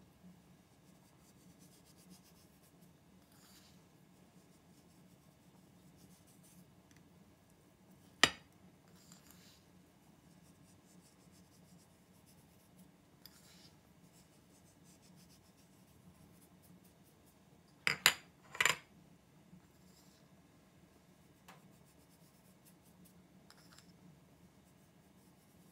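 Quiet kitchen room tone with faint, brief sprinkling hisses as spices are shaken onto a raw steak, broken by one sharp click about a third of the way in and a quick run of three hard clacks about two-thirds in.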